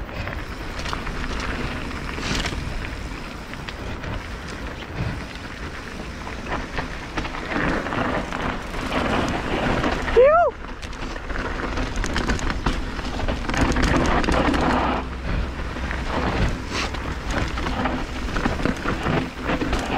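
Mountain bike descending a loose dirt trail: a steady rush of tyre and wind noise with scattered rattles and clicks. About halfway through there is one short rising squeal.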